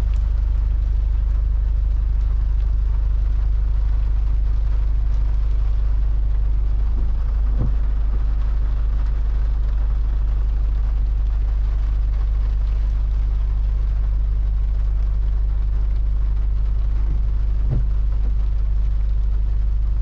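Steady low rumble of a vehicle running, heard from on board, with a faint knock about a third of the way in and another near the end.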